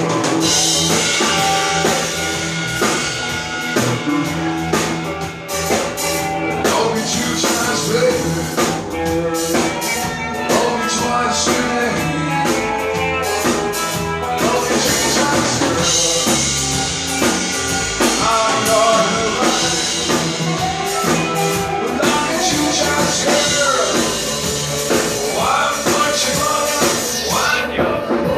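Rock music with a steady drum-kit beat and other band instruments, and a singing voice coming in over the second half.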